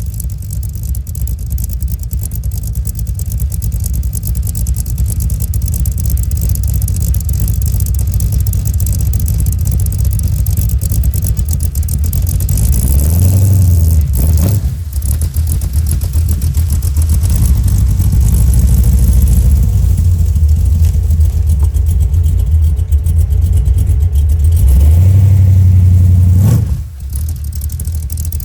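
Cammed 355 small-block Chevy V8 (AFR heads, XR282 cam) running through Flowmaster Flow FX mufflers. It is revved up twice, about halfway and near the end, each time cutting off abruptly when the throttle closes.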